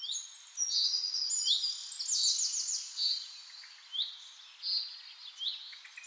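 Birdsong: small birds chirping and twittering in a run of short, high-pitched calls, some quick trills among them.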